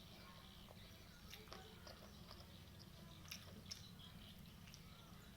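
Faint chewing of fried chicken: a few soft, scattered mouth clicks and crunches over a low steady hum.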